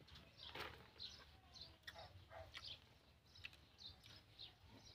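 Faint background birdsong: short high chirps repeating every half second or so, with a faint click about half a second in.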